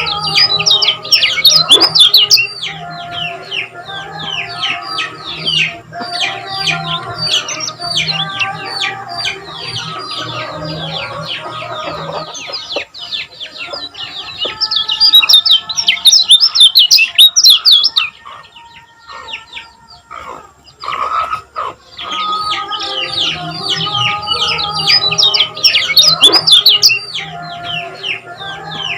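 Kecial kuning (yellow white-eye) song: fast, dense runs of sharp, high chirps, with a brief lull about two-thirds of the way through before the chirping picks up again.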